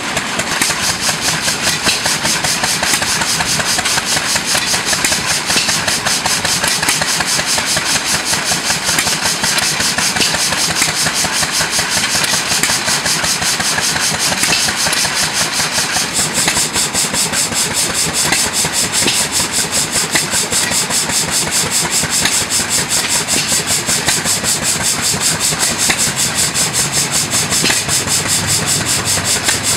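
Small model horizontal steam engine running fast, its exhaust a rapid, even stream of hissing puffs.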